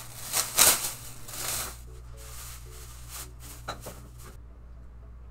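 Plastic drop-cloth sheeting crinkling as it is handled, in a few loud rustling bursts in the first two seconds and lighter ones after, over soft background music. The crinkling stops about four seconds in, leaving only the music.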